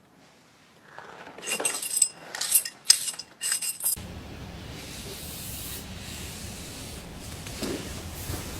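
Scissors cutting through hair: a quick run of metallic snips lasting about three seconds, starting about a second in. A steady hiss follows.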